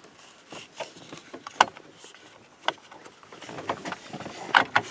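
Plastic clicks and rattling of a headlight switch being handled and pushed onto its wiring-harness connector, with a sharp click about a second and a half in and a cluster of clicks near the end.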